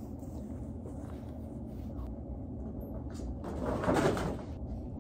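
Steady low room hum, with a brief rustling swish a little over three seconds in as clothes and things on the bed are handled.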